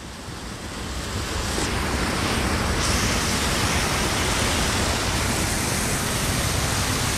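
Steady rushing of flowing water from an underground river, growing louder over the first couple of seconds.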